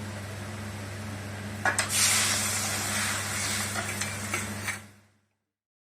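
Tamarind water poured into a hot pan of oil-fried vegetables and spices: after a couple of clinks about a second and a half in, a loud sizzle rises, then slowly settles. A steady low hum runs underneath, and everything cuts off abruptly about five seconds in.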